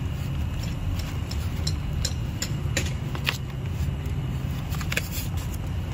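Metal chopsticks clicking lightly and irregularly against a pan of boiling broth and a plastic meat tray while beef slices are dropped in, over a steady low rumble.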